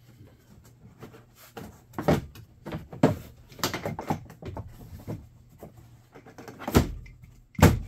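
Plastic dashboard panel of a Polaris Ranger UTV being handled and pressed back into place by hand: a string of knocks, taps and clicks, the two loudest near the end.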